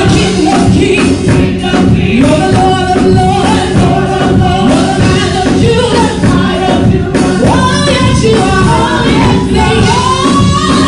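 Live gospel praise music: a choir singing with a band, loud and continuous, with steady percussion.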